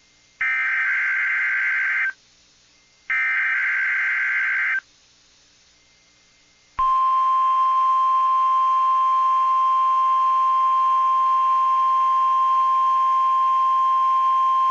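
Emergency Alert System data header sent over NOAA Weather Radio: two buzzy, screeching data bursts with short silent gaps between them. About seven seconds in, the steady single-pitch Weather Radio warning alarm tone starts and holds. Together they signal that a warning is about to be broadcast, here a test tornado warning.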